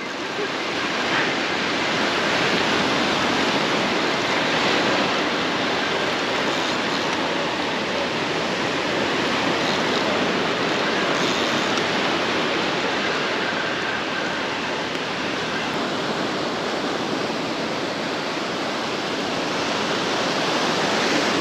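Ocean surf breaking and washing up the beach in a steady, continuous rush.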